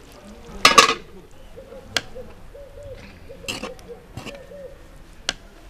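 A metal ladle clattering and knocking against aluminium cooking pots as rice is served: a loud clatter about a second in, then a few single knocks. Behind it a bird calls in a string of short, low notes.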